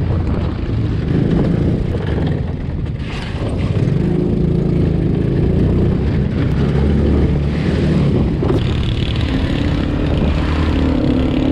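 Small 125cc mini jeep engine running under throttle over a bumpy dirt trail, its note rising and falling. Near the end the sound changes to the ATV's engine running behind it.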